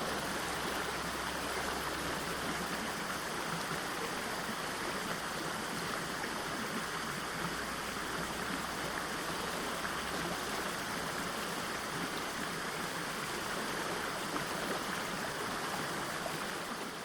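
River water rushing steadily at a waterfall, one continuous, even wash of water noise. It begins to fade out at the very end.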